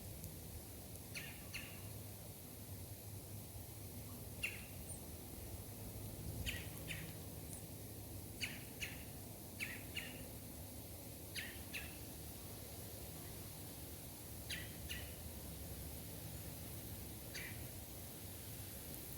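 A bird calling again and again in short, sharp calls, often two in quick succession, every second or two, over a steady hiss.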